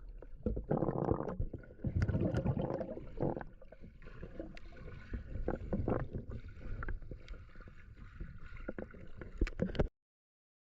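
Water sloshing and splashing, with scattered clicks and knocks; it cuts off suddenly near the end.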